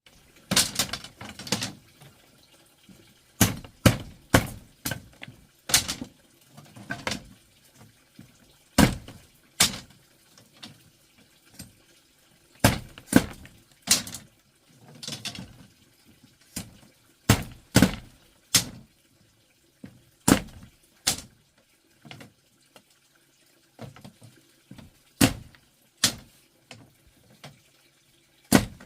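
Irregular sharp knocks and clatters, with a few short spells of running or splashing water.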